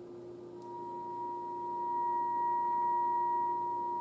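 Steady test tone from a 1940s Spiegel Air Castle radio's loudspeaker: the signal generator's modulation tone coming through the set as the generator is tuned to the 465 kHz IF, with a fainter lower tone beneath it. The tone grows louder from about half a second in as the generator reaches the IF peak, the sign that the IF stage is passing signal and is correctly aligned.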